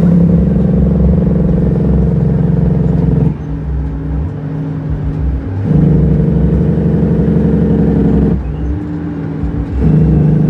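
Heavy truck's diesel engine heard from inside the cab, pulling loud and steady, then dropping to a quieter, lower note for a moment about three seconds in and again about eight seconds in. The drops come as the driver works the manual gearshift.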